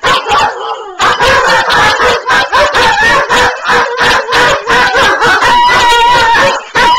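A Vizsla and a Weimaraner howling together, with quick repeated barks over a held howl. Near the end the barks stop and one long steady howl carries on.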